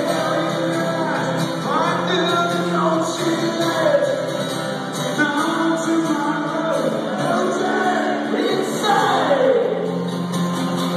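A live rock song played on acoustic guitar with a man singing, heard through an arena PA system.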